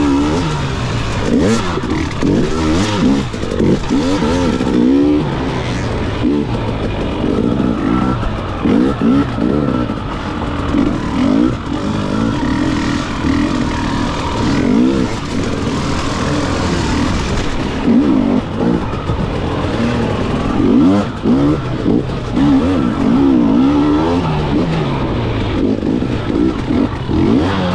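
Off-road dirt bike engine being ridden hard, revving up and falling back again and again as the rider works the throttle through a rough race course.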